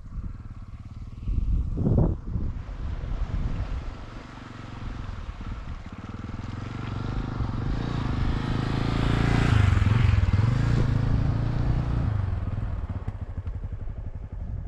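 Honda CBX 250 Twister's single-cylinder four-stroke engine running as the motorcycle rides along, growing louder toward the middle and easing off a little near the end.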